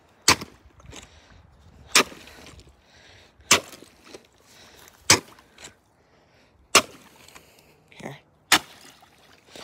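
Kayak paddle blade striking thin pond ice: six sharp cracks, evenly spaced about a second and a half apart.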